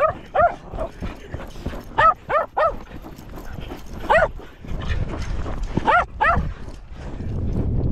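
A dog barking in short, high barks, in quick runs of two or three several times over. Wind rumbles on the microphone between the barks.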